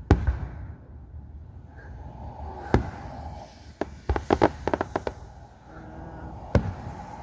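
Aerial fireworks going off: a loud bang right at the start, another a little under three seconds in, then a quick run of about ten crackling reports, and a last bang near the end.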